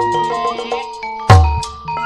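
Instrumental music: held melodic notes with a single loud drum hit a little past halfway.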